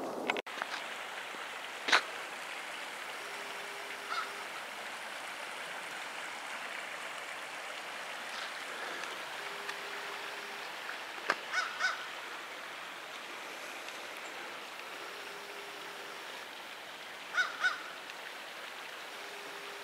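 A few short bird calls over a steady outdoor hiss of wind or moving water: a loud one about two seconds in, a quick run of three about two-thirds through, and a pair near the end.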